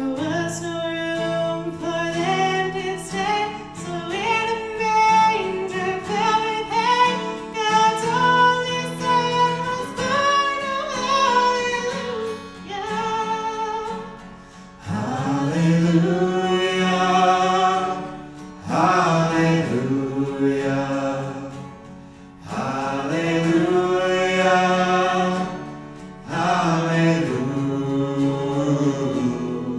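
Live worship band: a female lead vocal sings a slow song over acoustic guitar, with a male voice also singing. The phrases are separated by short breaks.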